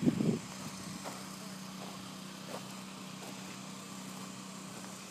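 Steady low hum of an engine running at idle, with a short loud noise right at the start.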